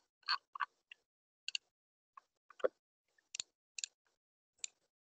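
Computer mouse clicking: about ten short, sharp clicks at irregular intervals, with silence between them.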